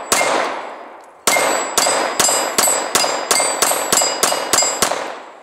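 Glock 19 Gen 4 9mm pistol firing at a steel swinger target, each shot followed by the steel plate ringing. One shot, a pause of about a second, then a quick string of eleven shots, the ringing fading out near the end.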